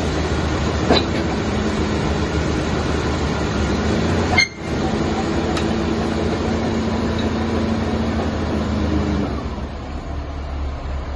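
Komatsu 155 bulldozer's diesel engine running steadily with a low, even drone, with a sharp click about a second in. The sound cuts out briefly about four and a half seconds in and is a little quieter from about nine seconds on.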